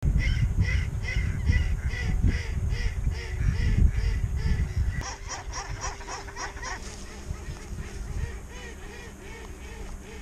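Waterfowl on a pond honking in a steady series, about two to three calls a second, with wind rumbling on the microphone. About five seconds in the calls turn into a quicker run, and after about seven seconds they go on fainter.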